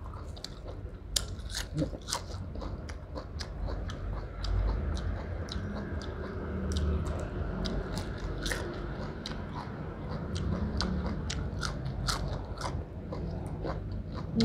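A person chewing and biting, with many short crisp crunches, eating beef tripe and fresh leafy greens.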